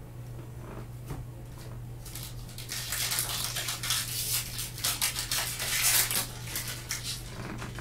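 A trading card pack's wrapper being torn open and crinkled by gloved hands. A few light rustles come first, then a dense crackling crinkle from about two and a half seconds in.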